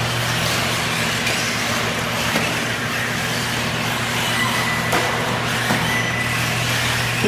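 Steady noise of 1:8 scale electric off-road RC buggies running on the track, over a constant low hum, with a faint thin whine and a few light clicks midway.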